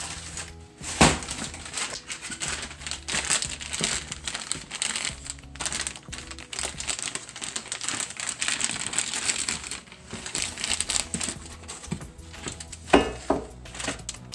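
Clear plastic parts bag crinkling as it is handled and opened, with a sharp knock about a second in and another near the end.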